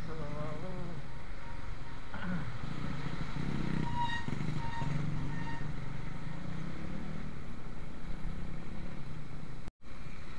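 Motorcycle engine running steadily while riding in traffic. A few short high tones come between about four and five and a half seconds in, and the sound cuts out for an instant near the end.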